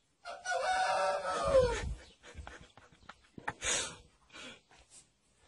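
One long drawn-out animal call lasting about a second and a half, its pitch falling at the end, followed by scattered rustling and a short hiss.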